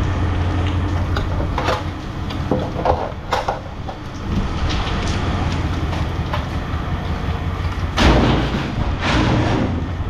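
Scrap metal knocking and clanking over a steady low machine hum, with two louder rushes of noise near the end.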